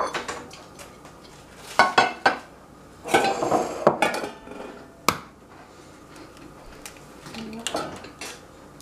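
Kitchenware clinking and knocking as eggs are separated: a metal spoon against a glass mixing bowl and eggshell knocked on the rim of a stainless steel bowl. The knocks are irregular, several close together about two seconds in and a single sharp one about five seconds in.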